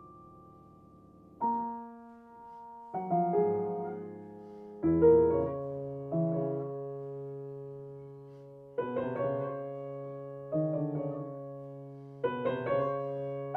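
Solo piano playing slow, sparse chords. A new chord is struck every second or two and each is left to ring and fade; some come in quick pairs.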